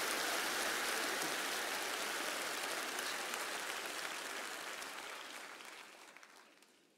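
A large audience applauding, many hands clapping together; the clapping dies away over the last two seconds.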